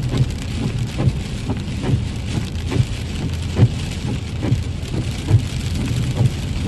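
Rain falling steadily, with irregular drops tapping on a hard surface over a steady low rumble.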